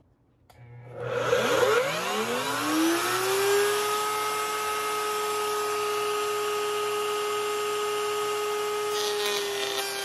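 Table-mounted wood router switched on about a second in, its motor spinning up with a rising whine to a steady high running pitch. Near the end a hiss joins and the pitch dips slightly as the bit begins cutting the wooden frame side.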